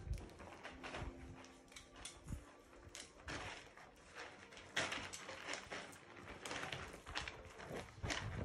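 Labradoodle puppies scuffling at play: an irregular run of scrapes, clicks and knocks from paws and bodies on the pen's pads and fleece and from the toys they bump.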